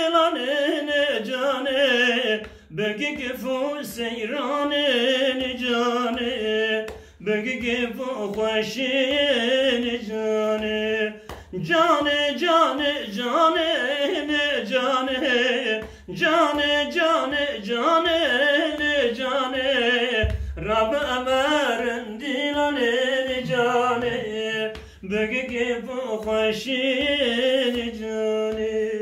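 A man singing unaccompanied, in long ornamented phrases with a wavering pitch, each phrase broken by a short pause for breath about every four to five seconds.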